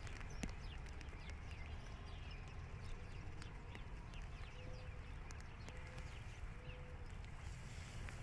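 Light raindrops tapping on a plastic rain poncho's hood: scattered, irregular taps over a low steady rumble.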